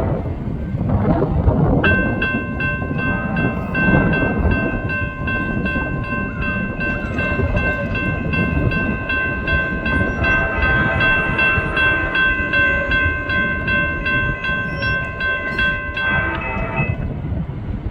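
Locomotive's K5LA five-chime air horn sounding one long chord, held for about fourteen seconds and cut off near the end, over the low rumble of the approaching train. A grade-crossing bell dings steadily about twice a second with it.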